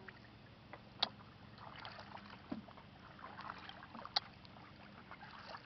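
Faint canoe paddling: soft swishes and drips of paddle strokes in the water, with two sharp knocks, about a second in and again about four seconds in.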